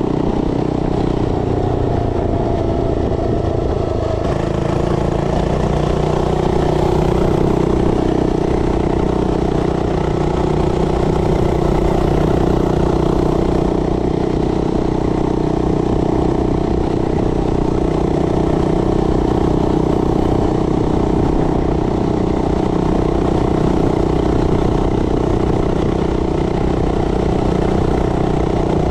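A mini bike's 99cc four-stroke OHV single-cylinder engine running under way. The engine note rises about four to six seconds in, then holds steady.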